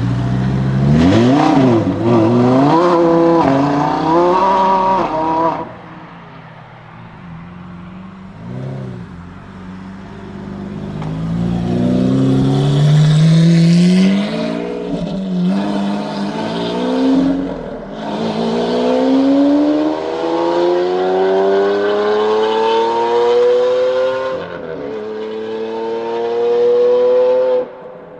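Lamborghini Huracán STO's naturally aspirated V10 under hard acceleration on track. Its pitch climbs and falls through gearshifts, fades about six seconds in, then builds again in long rising pulls with an upshift, cutting off suddenly near the end.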